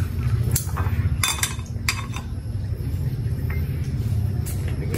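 A handful of light clinks of a utensil against a plate and small dish, most in the first two seconds and one near the end, over a steady low rumble.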